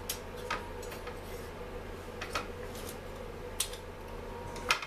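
Light metallic clicks and clinks as Stihl MS 250 chainsaw parts and hand tools are handled during reassembly, about half a dozen scattered ones with the sharpest near the end. A steady low hum runs underneath.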